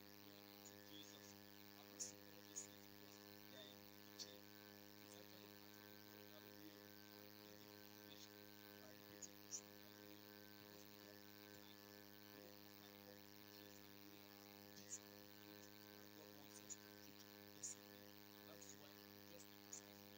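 Near silence with a low, steady electrical hum made of many even tones, and a few faint clicks scattered through it.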